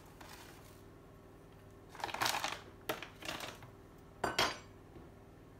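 Plastic bag of soft brown sugar rustling and crinkling in short bursts as it is handled and folded closed. A couple of sharp knocks follow a little after four seconds in as kitchen things are set down on the worktop.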